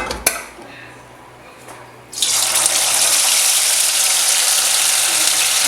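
Marinated, egg-and-cornflour-coated chicken pieces going into hot coconut oil for deep frying. After a click near the start, a loud, steady sizzle starts suddenly about two seconds in.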